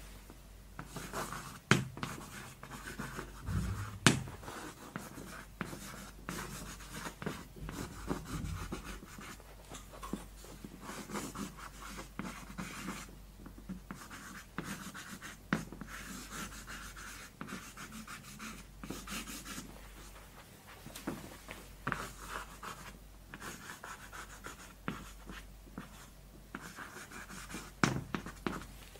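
Chalk scratching on a blackboard as a line of words is written out by hand, in irregular strokes with a few sharp taps of the chalk against the board.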